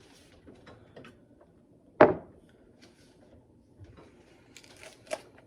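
A single sharp knock about two seconds in, with a short ring after it, then a lighter click near the end and a few faint taps: hard household objects handled and set down.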